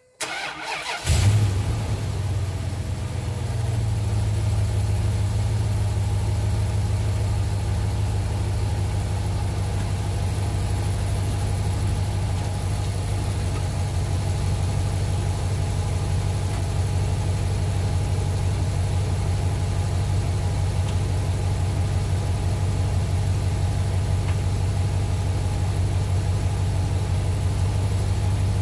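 Dodge Ram 4x4 pickup's engine starting about a second in and then idling steadily.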